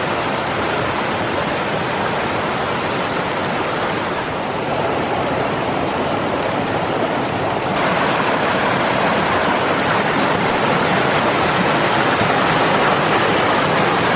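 Rushing water of a mountain stream tumbling over rocks, a steady loud rush that gets louder about eight seconds in.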